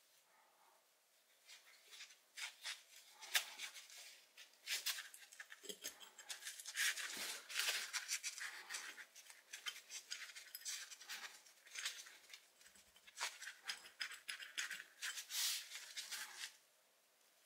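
Rusty steel wrench being handled: an irregular run of faint scrapes and clicks of metal rubbing and knocking, which stops shortly before the end.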